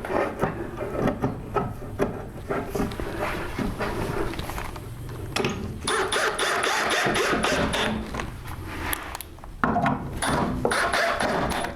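Power drill driving screws into a wooden sled fence in a couple of longer runs, with knocks from handling the workpiece.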